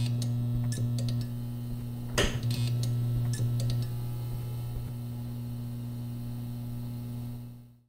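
Electrical buzz of a neon sign: a steady low mains hum with sharp crackles and clicks as the tubes flicker on, the loudest crackle about two seconds in, fading out near the end.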